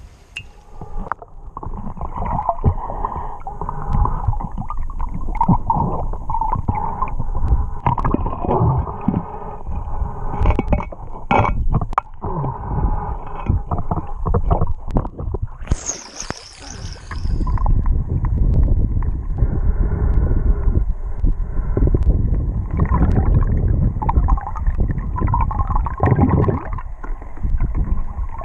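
Muffled underwater rumble and gurgling from a camera submerged in a river, with scattered knocks and a brief high hiss a little past halfway.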